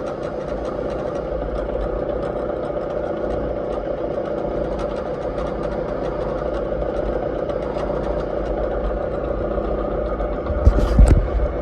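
Bridgeport milling machine running at low spindle speed, its cutter taking a light skim cut off a valve guide boss on a cylinder head: a steady machine hum. A brief, louder noisy knock near the end.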